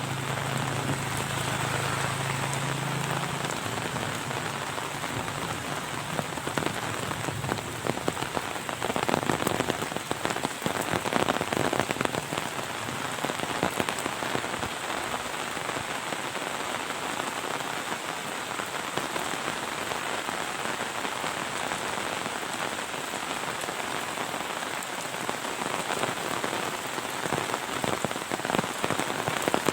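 Heavy monsoon rain falling steadily, a dense patter that grows a little heavier about ten seconds in. A faint low hum sounds under it for the first few seconds.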